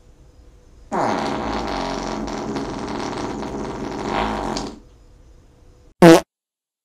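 A long, pitched fart lasting nearly four seconds, dropping in pitch at its start and then holding steady. Near the end comes a second, much shorter and louder blast.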